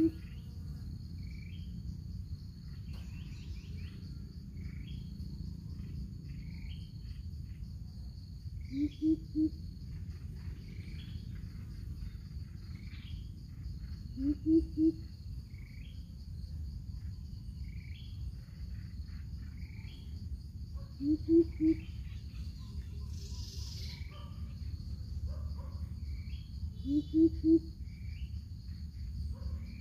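Greater coucal calling with deep, low hoots in short runs of two or three notes, four times about every six seconds. Under the calls runs a steady high insect drone, with scattered small bird chirps.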